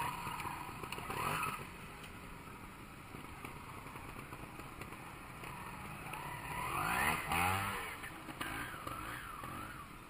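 Trials motorcycle engine revved in short blips. The strongest rise and fall in revs comes about seven seconds in, followed by a few quick throttle blips.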